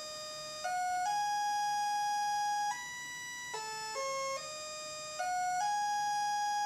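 Future Sound Systems Brunswick DIY synthesizer playing a sequenced pattern of stepped pitches from an Arturia KeyStep: one continuous tone that climbs note by note, holds one long note, then drops back and repeats about every four and a half seconds. It never falls silent, because only pitch is controlled and there is no gate, so the sequence's rests still sound a pitch.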